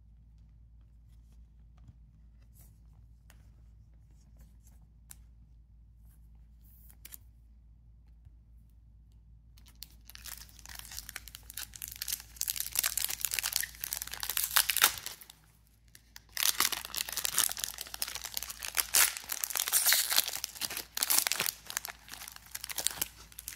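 Foil wrapper of a Topps Chrome trading-card pack crinkling and tearing as it is ripped open by hand, in two spells of about five and seven seconds with a short pause between. Before that, about ten seconds of near quiet with a few faint clicks.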